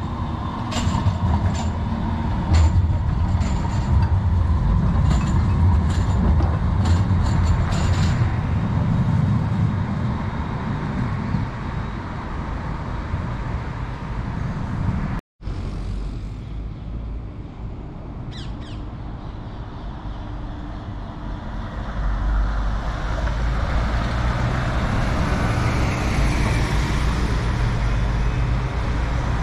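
A tram rolling past with a heavy rumble, a steady whine and a run of sharp clicks from the track. It is cut off abruptly about halfway through. After a short squeal, road traffic follows, with a heavy vehicle's engine growing louder from about two-thirds of the way in.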